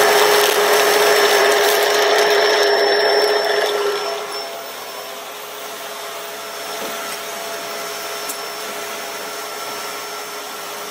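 Bissell Pet Hair Eraser Turbo Rewind vacuum cleaner motor running with a steady whine. About four seconds in it drops noticeably quieter and carries on steadily.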